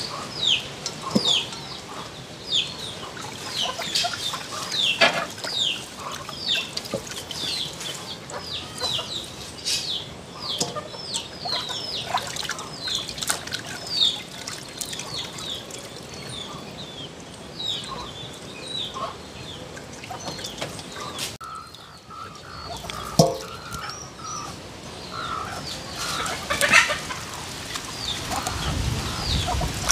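Domestic fowl calling: a steady run of short, high chirps, each falling in pitch, two or three a second. About 23 seconds in there is a single sharp knock.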